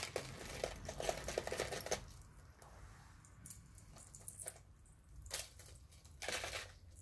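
Costume jewelry being handled: light clicking and rattling of metal chains and beads, busiest over the first two seconds, then a few scattered clicks.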